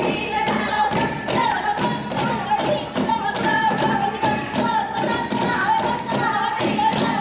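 Saman dance: a group of dancers chanting in unison while beating a quick rhythm of sharp claps and slaps on their bodies with their hands.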